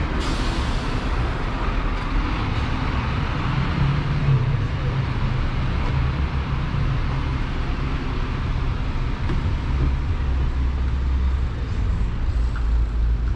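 Street traffic: motor vehicles running past with a steady low rumble.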